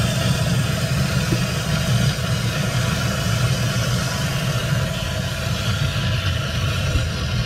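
Garden hose running water into a bass boat's plastic livewell, a steady churning rush as the well fills.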